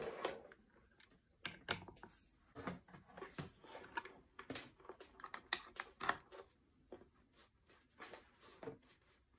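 Irregular light clicks and taps of hands handling things on a wooden table: a pair of scissors being put down and the plug of a USB power cable being connected.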